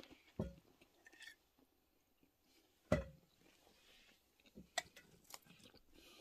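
A few short clinks and knocks of a metal spoon against a soup plate and a glass honey jar, the loudest about three seconds in, with faint chewing between them.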